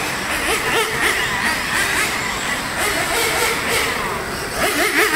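Radio-controlled nitro touring cars racing on a track, their small engines buzzing and revving up and down in quick rising glides as they accelerate out of corners, louder near the end.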